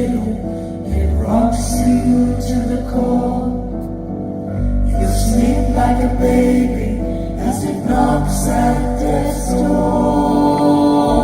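Live band playing a slow song, with sung vocals over sustained keyboard and guitar chords and choir-like backing singers.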